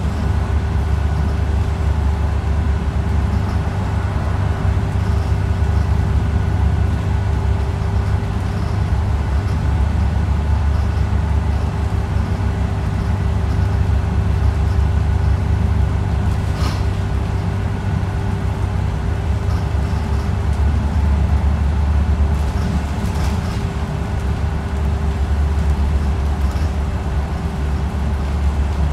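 City bus in motion, heard from inside the passenger cabin: a steady low rumble of engine and road with a constant droning hum over it. There is a single brief click about two-thirds of the way through.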